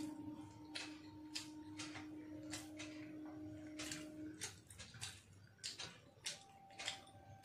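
Eating sounds: a man chewing and working rice by hand, heard as irregular soft clicks and smacks about once or twice a second. A steady low hum runs underneath and stops about halfway through.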